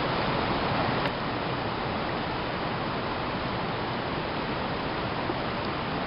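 Steady rush of river water running over rocks and rapids, with a small click about a second in, after which the rush is slightly quieter.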